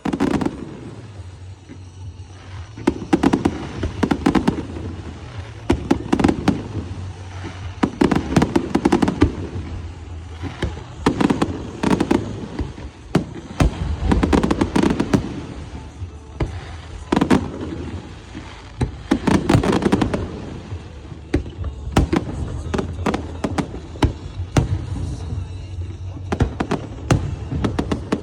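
Fireworks going off in rapid succession: many sharp bangs and crackles, with deeper booming swells about every two seconds.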